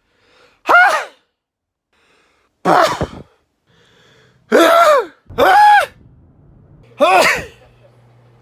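A person sneezing five times in quick succession, each a short, loud, voiced 'achoo' whose pitch rises and then drops away, the fourth and fifth close together.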